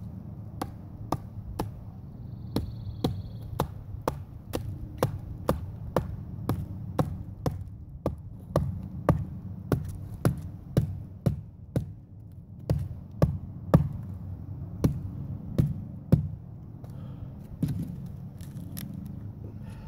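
Splitting a big pine log with a Bowie knife: a steady run of sharp wooden strikes, about two a second, with a brief pause about two-thirds of the way through. The strikes stop a few seconds before the end.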